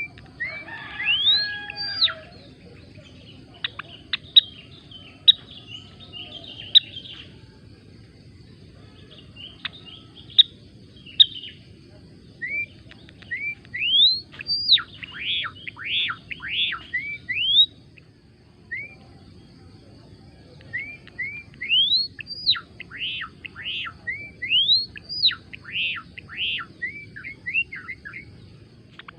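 Gelatik belong songbird singing: bursts of quick, high, upward-sweeping chirps mixed with sharp clicking notes, strung into phrases of a few seconds with short pauses between them.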